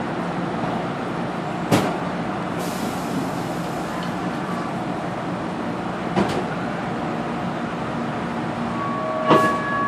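Steady hum inside a light-rail car, with three sharp knocks, the first about two seconds in, one near the middle and one near the end. A faint steady tone comes in near the end.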